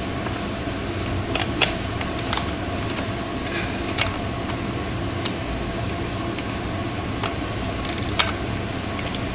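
Scattered sharp metallic clicks and clinks of a wrench stuck on a dirt bike's rear sprocket bolt being worked to free it, over the steady hum of an air conditioner.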